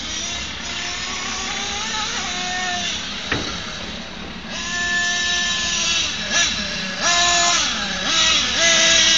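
The 26cc two-stroke petrol engine of a large-scale Losi Aftershock RC truck running at high revs as it is driven round the track, its pitch dipping and rising with the throttle. It gets louder from about halfway through as the truck comes closer.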